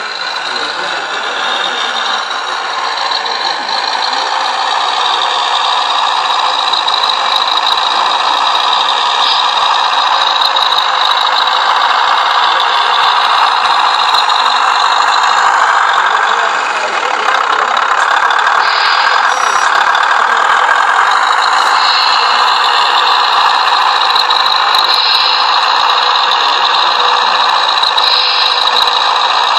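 A radio-controlled scale model Scania 140 truck running, its small electric drive motor and gearbox whining and rattling, the pitch rising and falling as it manoeuvres.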